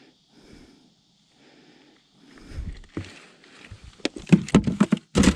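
Handling noise on a bass boat: a few dull thumps, then a quick run of sharp knocks and clicks in the last second and a half.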